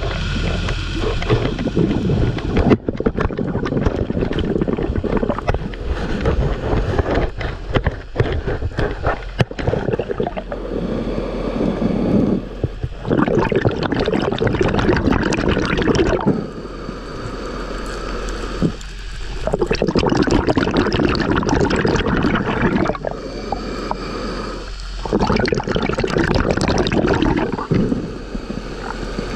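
Underwater bubbling and gurgling from a diver's exhaled air, with water noise against the camera. The bubbling comes in bursts a few seconds apart in the second half, with quieter water noise between.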